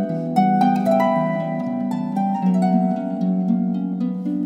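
Background music: a gentle melody of plucked string notes, each one ringing on, a couple of new notes a second.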